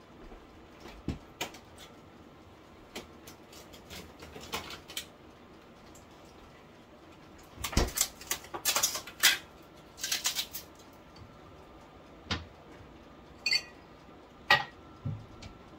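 Kitchen handling sounds: scattered light knocks and clicks of things set down on a counter, with louder rustling clatter in two bunches around the middle. Near the end comes a sharp clink with a short ring, like a drinking glass set down.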